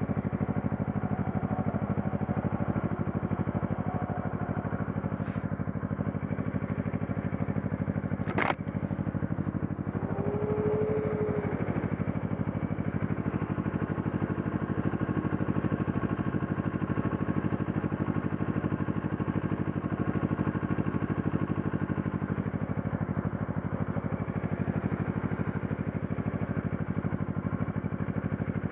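Sport motorcycle engine idling steadily at a standstill, with a single sharp click about eight seconds in and a brief whine a couple of seconds later.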